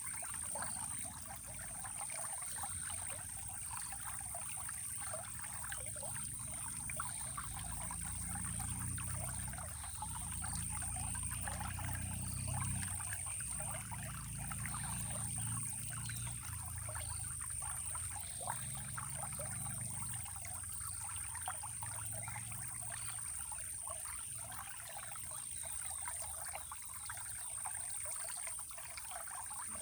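Running water trickling and splashing steadily in a stream, with a steady high-pitched tone above it and a low rumble that swells and fades in the middle.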